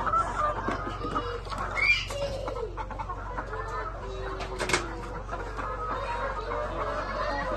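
A flock of caged laying hens clucking and calling, many birds at once, with a sharper squawk about two seconds in and a few knocks near the middle.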